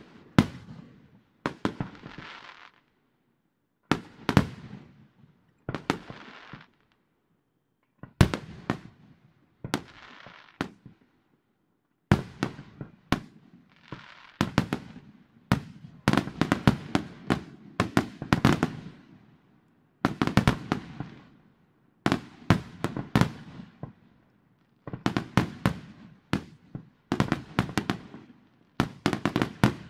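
Aerial fireworks shells bursting in quick succession: clusters of sharp bangs about every second or two, each cluster trailing off in a brief noisy tail.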